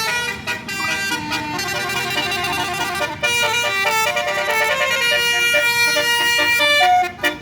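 Telolet Basuri musical air horns on tourist buses playing quick melodies that step from note to note, with a short break about three seconds in.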